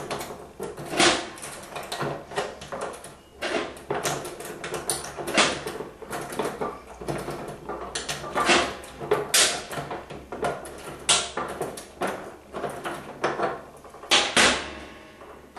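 A key being worked in the lock at the back of a vending tower and the back panel being handled and taken off: a long series of sharp clicks, knocks and rattles, some loud.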